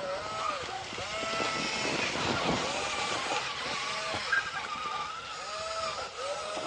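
Small electric motor of a battery-powered toy truck whining, its pitch rising and falling in repeated surges as it speeds up and slows.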